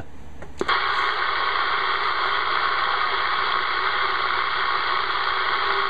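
Static from a Realistic CB radio's speaker. About half a second in, a click comes as the set is unkeyed and switches to receive. A steady rushing hiss of band noise with a faint tone in it follows, and no station can be read: the distant station has faded out.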